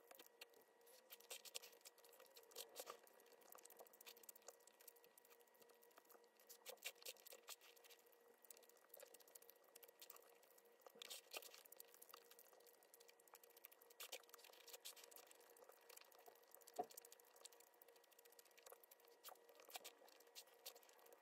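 Faint, scattered crinkles and light clicks of plastic food packaging being handled, over a faint steady hum.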